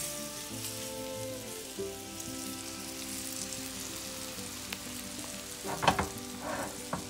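Flour-and-egg-breaded morel mushrooms frying in butter and oil in a cast iron skillet: a steady sizzle, with a sharp knock about six seconds in. Soft background music plays underneath.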